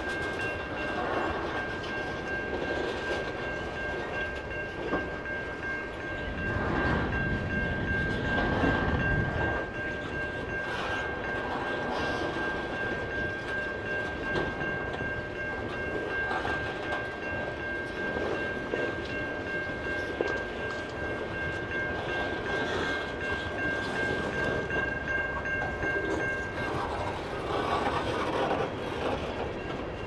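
Freight cars of a CN train rolling past, wheels clacking over the rail joints, with a louder rumble about seven to nine seconds in. A steady high-pitched tone sounds over the train and stops about 26 seconds in.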